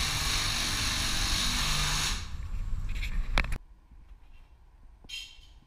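A power tool, drill-like, running steadily for about two seconds and then stopping, followed by two sharp clicks.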